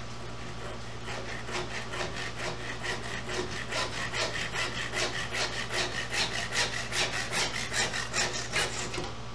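Hand saw cutting through old wooden dowels in steady back-and-forth strokes, about two to three a second. The strokes start soft, grow louder as the cut goes on, and stop shortly before the end.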